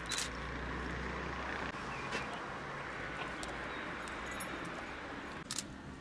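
Steady outdoor town noise of distant traffic, with a few sharp clicks: one just after the start, one about two seconds in and one near the end.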